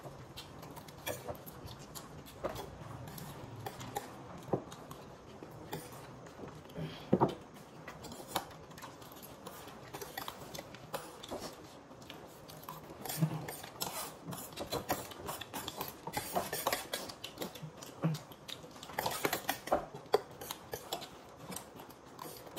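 Spoons clinking and scraping on plates as people eat: irregular scattered clicks, busier and louder in the last few seconds.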